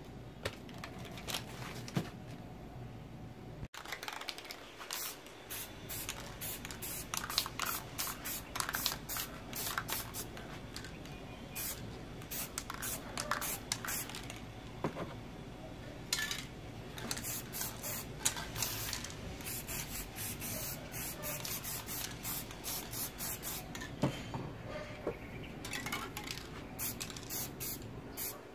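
Aerosol spray paint cans hissing in many short, quick bursts with brief gaps as paint is sprayed onto a board. The spraying starts about four seconds in.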